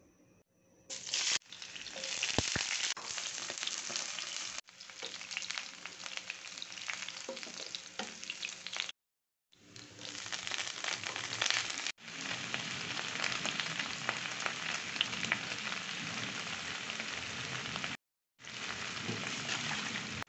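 Sliced shallots and garlic sizzling and crackling as they fry in hot oil in a non-stick pan, with napa cabbage in the pan by the end. The sizzle breaks off to silence twice for under a second.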